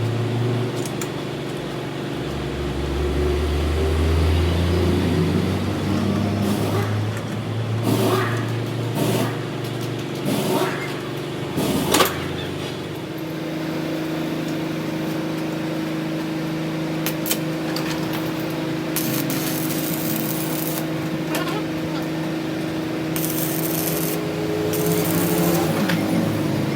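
A workshop machine running steadily with a constant hum, with a few sharp knocks about a third of the way in.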